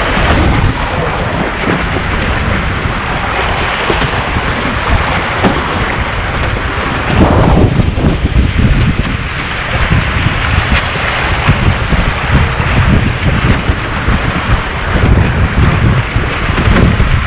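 Wind buffeting a GoPro microphone and water rushing along the hulls of a Nacra 18 racing catamaran under sail. The noise comes in gusts, louder about halfway through and again near the end.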